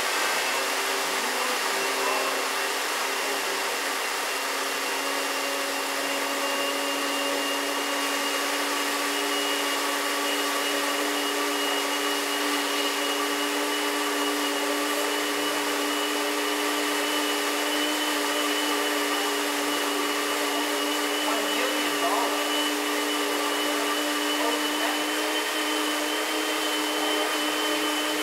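Countertop blender running steadily, blending a yogurt mixture: a constant motor whine with a hiss, holding the same pitch and level throughout.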